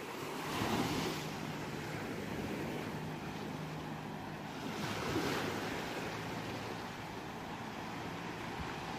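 Ocean waves washing onto a shore over a steady hiss of surf. Two waves surge and break, about a second in and again about five seconds in.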